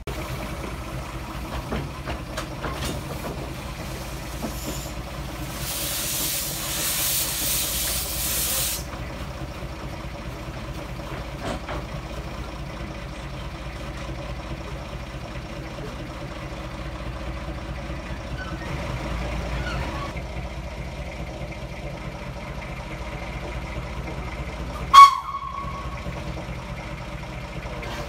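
Narrow-gauge steam locomotive letting off a hiss of steam for about three seconds, over a steady low engine rumble. Near the end comes one short, loud whistle toot.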